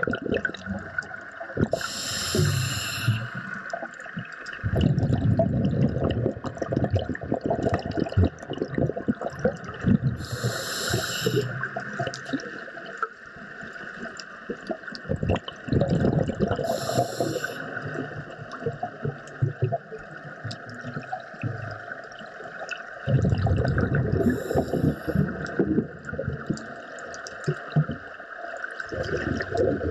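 Underwater sound of a diver breathing: long spells of bubbling and gurgling, with a short hiss about every seven to eight seconds.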